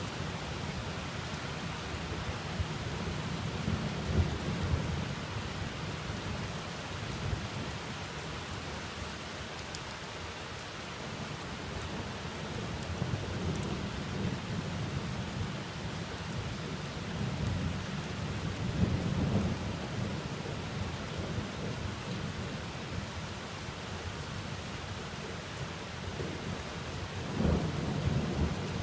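Thunderstorm: steady rain hissing, with low rolls of thunder rumbling up and dying away several times.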